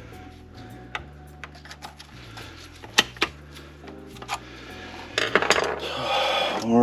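Metallic clicks and clinks from hands working parts on a manual transmission's aluminium shift cover and shifter, with one sharp click about three seconds in and a quick cluster of clicks and a short rattle near the end.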